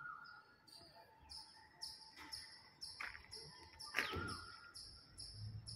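Birds calling: a regular run of high chirps about twice a second, with a few short rising whistles and a couple of downward-sweeping calls.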